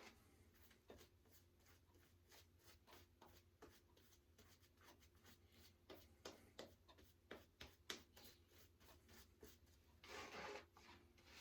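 Faint scraping of a double-edge safety razor cutting through lathered stubble in short, quick strokes, several a second, with a longer, louder rasp about ten seconds in.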